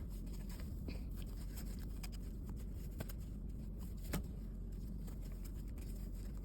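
Faint rustling of a crochet hook working chunky t-shirt yarn, with two light clicks about three and four seconds in, over a steady low hum.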